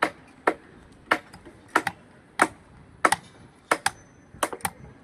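Hammer blows on wooden shuttering, about two a second at an uneven pace, some landing in quick pairs, as a carpenter nails formwork for a column starter.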